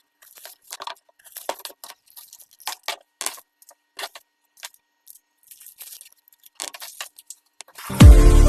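Scattered light clicks, clinks and rustles at irregular intervals, like small kitchen items being handled; background music with a strong bass starts abruptly near the end.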